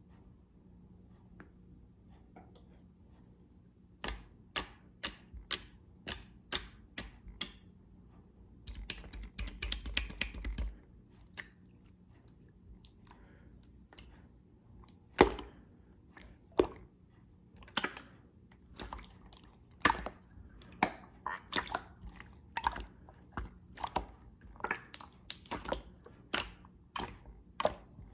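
Clear slime being worked by hand, giving a string of sharp wet pops and clicks as air pockets squeeze out, with a quick crackling run about nine seconds in.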